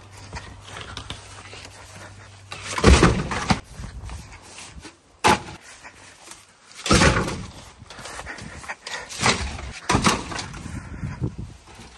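Scrap wooden planks and plastic pipes being picked up and tossed into the back of a van: a series of knocks and clatters, the sharpest about five seconds in.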